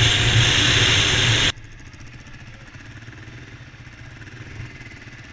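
Dual-sport motorcycle at speed, its engine under heavy wind noise on the helmet-mounted camera. About a second and a half in the sound cuts off abruptly to the much quieter sound of motorcycle engines idling.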